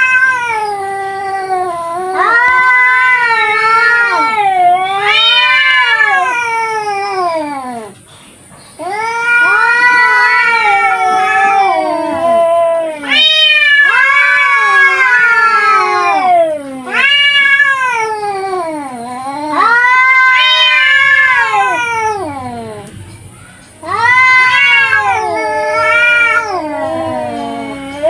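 Two grey domestic cats yowling at each other in a fighting standoff. Long, drawn-out, wavering cries rise and fall in pitch, in phrases of a few seconds broken by short pauses.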